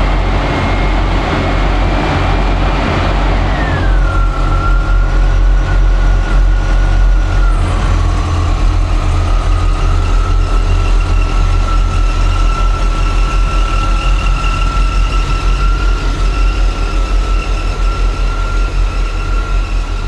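Jaguar XJ40 engine running at low speed as the car is reversed out of a garage. A thin, steady high whine over it drops in pitch about four seconds in and again near eight seconds.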